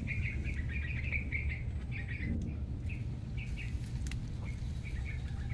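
A bird chirping over and over in quick runs of short notes, thinning out after about two seconds, over a low steady rumble.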